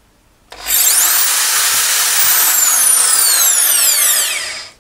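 Corded AC electric drill run at full trigger, drawing about 3 amps. It starts about half a second in, runs steadily for about four seconds with a high whine, and cuts off near the end.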